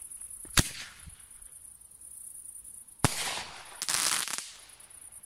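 An aerial firework launching with a sharp thump about half a second in, then bursting with a bang some two and a half seconds later, followed by a quick dense crackle of crackling stars.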